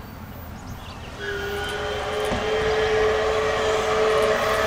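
CP 2816 Empress, a 4-6-4 Hudson steam locomotive, blowing its chime steam whistle: one long blast of several notes at once, starting about a second in and held.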